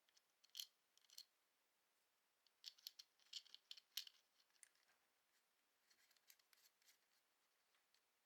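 Faint clicks and light rattles of small hard objects being handled, in irregular clusters: a few near the start, a busier run in the middle, then sparser ones.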